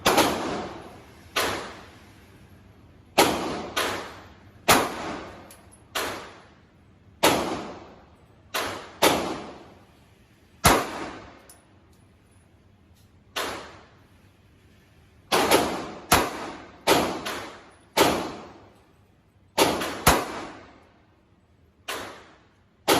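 Pistol shots on a shooting range, about twenty single shots at uneven intervals roughly one to two seconds apart, each ringing out briefly after the crack.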